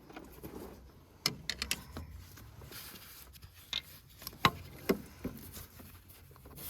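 Hand tools being handled while sockets are tried against a starter bolt: a string of irregular light clicks and clinks, a few sharper knocks among them.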